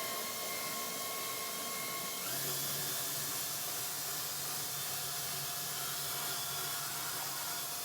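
A small electric motor running steadily with a whine over a hissing rush of air. Its pitch steps up a couple of seconds in, and it cuts off near the end.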